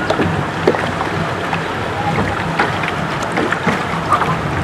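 Water rushing and splashing along the hull of a small boat moving on the river, with a low steady hum underneath and a few sharper splashes.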